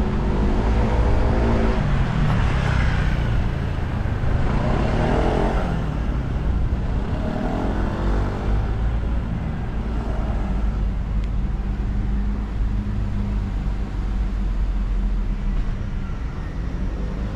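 A car driving along a road, with steady engine and road noise throughout. A pitched engine-like tone rises and falls several times.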